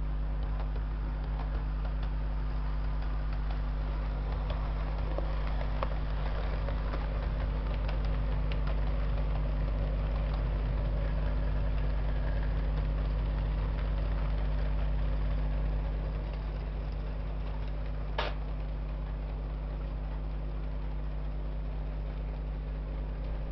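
Model railway locomotive, a model of Class 47 diesel 47401, running on the layout track: a steady motor hum with light clicks of the wheels over the rail joints. The sound drops a little about two-thirds of the way in as it moves away, and there is one sharp click shortly after.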